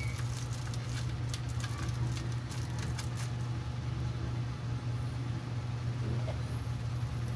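A steady low hum throughout, with light clicks and crinkling from bubble wrap and small parts being handled on an RC truck chassis during the first few seconds.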